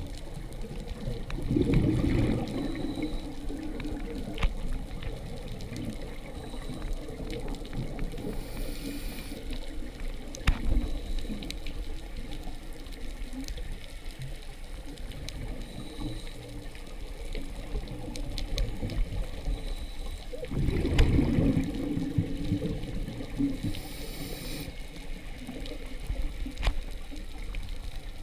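Underwater scuba breathing heard through the camera: regulator exhaust bubbles gurgle out twice, about two seconds in and again about twenty seconds later, with a short hiss of regulator inhalation between them, over a steady underwater wash with scattered faint clicks.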